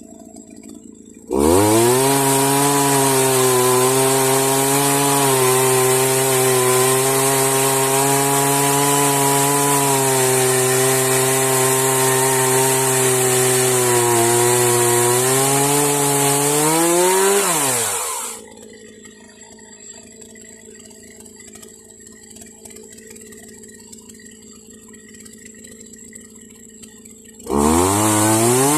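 Chainsaw on a homemade Alaskan-style sawmill, throttled up about a second in and running at full speed for about sixteen seconds while sawing through wood. Its pitch sags slightly, then rises before it is let off and dies away. It is throttled up again near the end.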